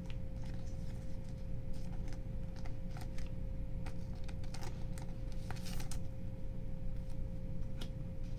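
Trading-card pack wrapper being torn open and handled: scattered light crinkles and clicks of the plastic wrapper and cards, over a faint steady hum.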